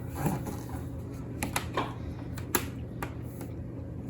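Plastic magnetic letters clicking and clacking against a fridge door as they are picked off and stuck on, about six small clicks at irregular intervals.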